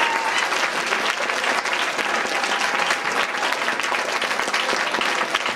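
Steady applause from a roomful of people, choir singers and listeners clapping together.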